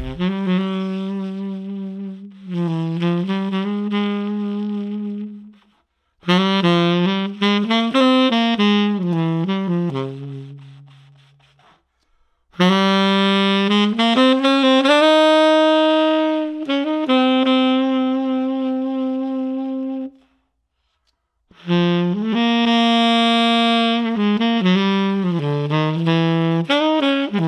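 Tenor saxophone played through a JodyJazz hand-hammered, rose-gold-plated limited-edition metal mouthpiece: a melody in four phrases with short breaks between them.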